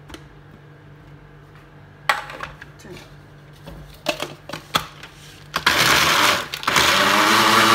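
Plastic knocks as the lid is fitted onto a small electric food chopper, then its motor runs loudly in two bursts, a brief pause between, mincing chicken pieces.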